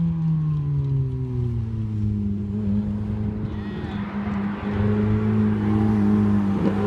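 Ferrari sports car engine, its revs falling during the first two seconds, then running at a steady pitch and growing louder as the car draws near and drives past.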